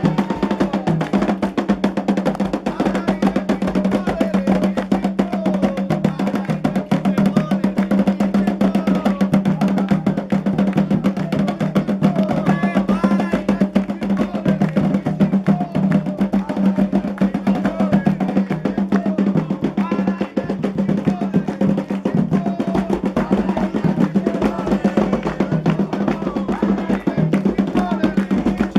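Candomblé ceremonial music: atabaque hand drums beaten in a fast, steady rhythm, with voices singing over them.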